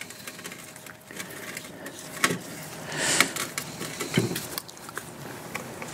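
Hands working a raw chicken on a metal rotisserie spit, pushing an onion into its cavity: scattered light clicks and knocks, a brief rustle about three seconds in and a soft thump about a second later.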